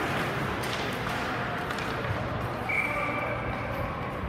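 Ice hockey game ambience in an indoor rink: a steady wash of skating and crowd noise. About two-thirds of the way in, a single high tone comes in sharply and fades over about a second and a half.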